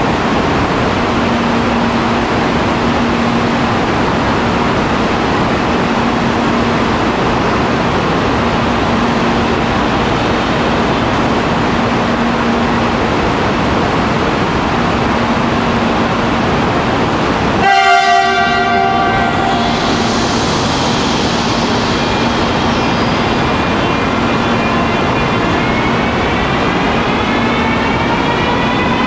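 CRH380B high-speed train at the platform, a steady hiss and hum while it stands. A short horn toot about two-thirds of the way through. Then the electric traction whine rises steadily in pitch as the train starts to pull away.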